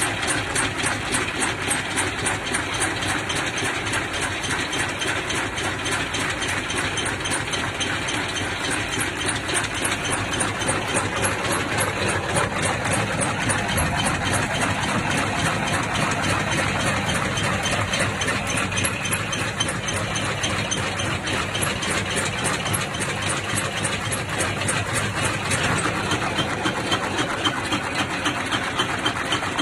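Vibration test machine running steadily, shaking trays packed with cylindrical lithium battery cells: a continuous mechanical noise with a fast, even pulse.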